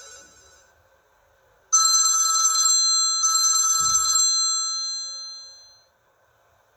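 Samsung Star 2 mobile phone playing a telephone-bell ringtone: two rings about a second long each, starting about 1.7 s in, the second dying away over a second or so. The tail of the previous ringtone fades out at the start.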